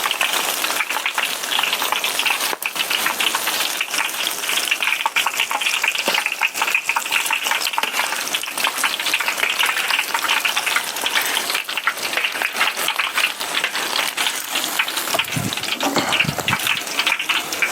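Green onions, shallots, onion, cilantro, celery and ginger sizzling and crackling steadily in hot oil as they are fried dry.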